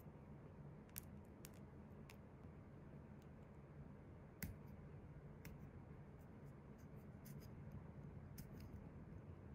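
Faint, scattered small clicks and ticks of a wooden orange stick pressing a gold rhinestone chain and rhinestones onto a long gel nail, over a low steady hum.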